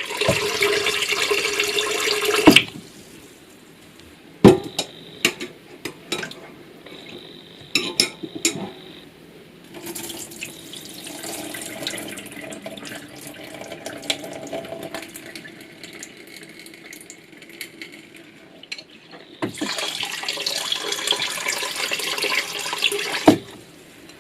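Cold water running into a bowl of sticky rice, stopping after about two and a half seconds. Then come scattered clinks and knocks of the bowl and a softer sound of water being swished and drained, before the water runs again near the end. This is the rice being rinsed and drained over and over.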